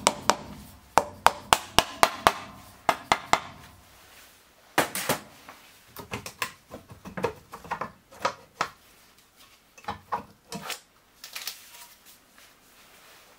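Sharp taps and knocks on the Yamaha XT600 single's left-side alternator cover as it is worked loose, a quick run of them first and then scattered knocks as the cover comes off the crankcase.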